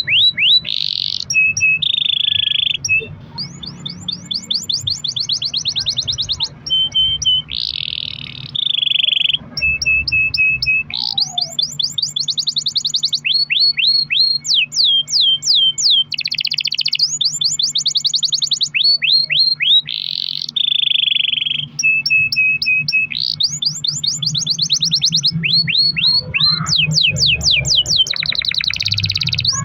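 Domestic canary singing a long unbroken song, phrase after phrase of rapidly repeated notes that switch every second or two between fast high rolls, quick rising sweeps and lower buzzy trills. A faint steady low hum runs underneath.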